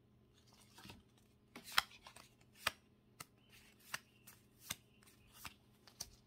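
Pokémon trading cards being flipped through one at a time, each card slid off the stack with a short, light snap, starting about a second in and coming a little faster than one a second.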